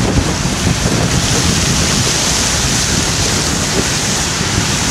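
Steady rushing noise with a low rumble: a car driving slowly through floodwater, water washing around its tyres, with wind buffeting the microphone.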